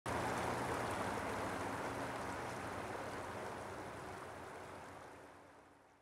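River water rushing over stones: a steady wash that fades out gradually over about five seconds.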